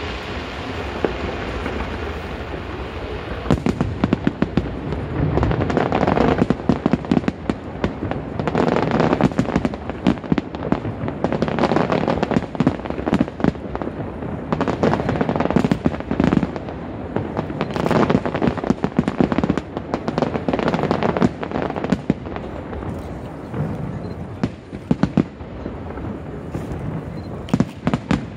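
Aerial fireworks display: a dense barrage of rapid bangs and crackling shell bursts that starts a few seconds in and keeps going.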